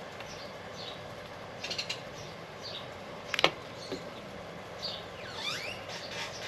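Birds chirping and whistling in short calls over a steady outdoor background hiss. There is one sharp click about three and a half seconds in.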